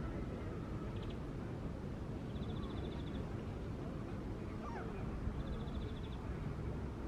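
Outdoor shoreline ambience: a steady low background noise with scattered bird calls, several short high trills and a couple of faint falling calls.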